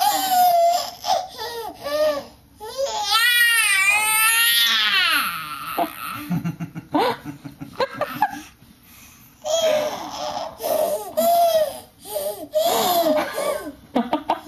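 Baby making excited gurgling, squealing and laughing vocal noises in bursts, with a long warbling squeal a few seconds in.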